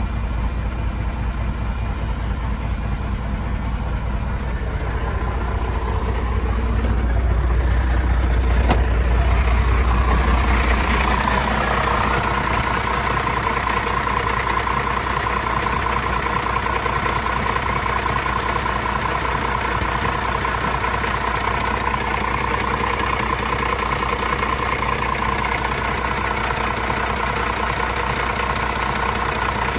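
A 1989 12-valve Cummins 5.9-litre inline-six diesel idling steadily, warming up after a cold start. It is heard first from inside the cab and then close up in the open engine bay, where the sound turns brighter and more clattery about eleven seconds in.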